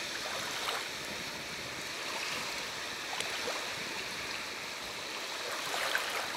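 Small waves washing gently against a sandy shore, a steady wash of water, with a few faint clicks.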